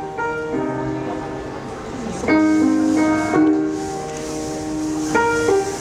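Music: piano playing slow sustained chords, a new chord struck about two seconds in and another near the end.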